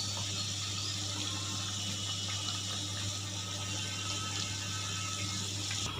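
Plantain vadai deep-frying in a pan of hot oil: a steady sizzle and bubbling of the oil, with a low hum underneath.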